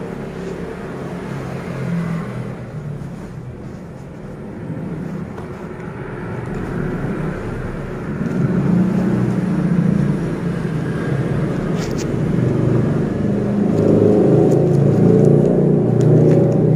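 A motor vehicle engine running close by with a low, steady rumble that grows louder from about halfway through.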